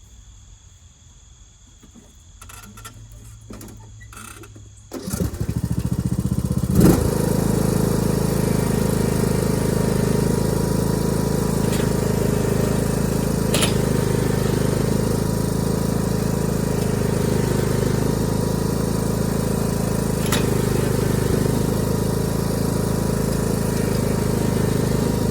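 John Deere D110 lawn tractor engine coming in suddenly about five seconds in, then running steadily under load as the tractor tries to pull a towed wood chipper out of a dip with its rear tires spinning on the grass.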